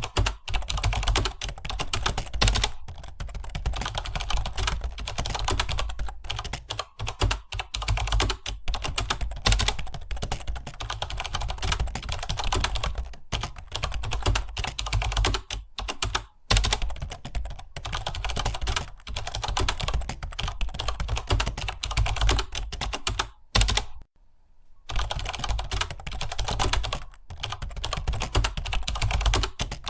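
Computer keyboard being typed on fast and continuously, a dense run of key clicks with a pause of about a second near the end.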